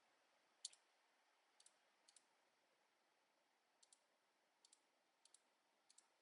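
Faint computer mouse clicks, mostly in quick pairs every second or so, as a limit price is stepped down a cent at a time; otherwise near silence.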